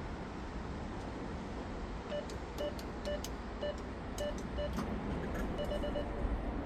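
Steady low background rumble, with a series of short beeps all at the same pitch starting about two seconds in and coming irregularly, several in quick succession near the end, plus a few faint clicks.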